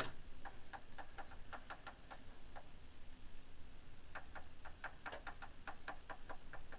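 Clacking from the drive chain of a Triumph Speed Triple 1050: a run of sharp, uneven clicks, several a second, with a pause of about a second and a half in the middle. It is a chain fault, not damage to the gearbox or drive.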